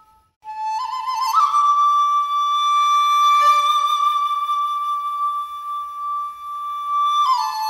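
Background music: a slow solo melody on a single wind-like instrument. After a brief gap at the start it steps up through two wavering notes into one long held note, then drops back to a lower note near the end.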